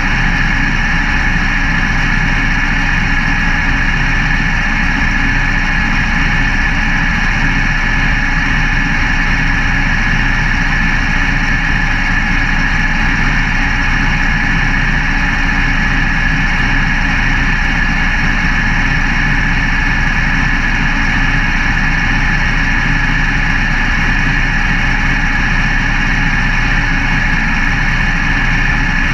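Dirt-track race car's engine idling steadily, heard from inside the cockpit.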